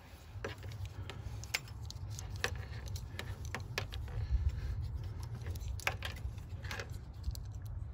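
Plastic automotive wiring connectors and harness being handled, giving scattered light clicks and rattles, over a low steady rumble.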